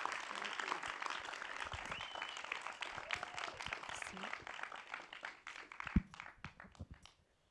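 Theater audience applauding, with a few voices calling out, the clapping thinning out and dying away about five seconds in. A single thump near six seconds as a handheld microphone is passed and handled.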